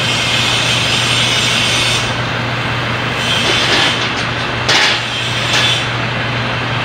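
Steady loud mechanical noise with a low hum under it, and a few light knocks, the loudest about two-thirds of the way in.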